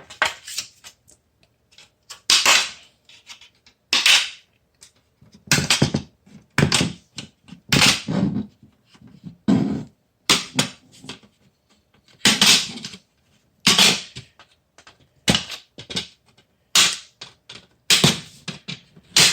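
Wire snippers cutting through a PC case's plastic front-panel frame, one sharp crack of snapping plastic at irregular intervals about one to two seconds apart.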